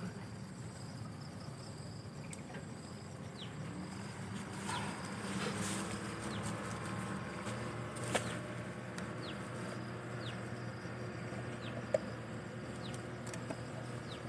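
Insects droning steadily, with short, falling high-pitched bird chirps now and then, and two sharp clicks, the first about eight seconds in and the second about four seconds later.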